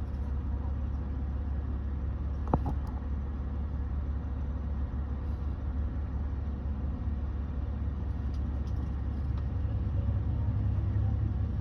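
Car engine running steadily with a low rumble, plausibly the BMW X5's 3.0-litre inline-six, with a single sharp click about two and a half seconds in.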